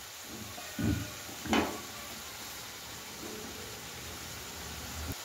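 Chopped beetroot, carrot and tomato sizzling in oil in a nonstick pan while a spatula stirs them, with a steady hiss. Two brief knocks about a second in and another near the end.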